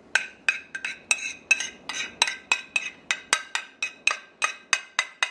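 Metal spoon knocking and scraping against a ceramic bowl to get the last of the marinade out: a quick, even run of ringing clinks, about four a second.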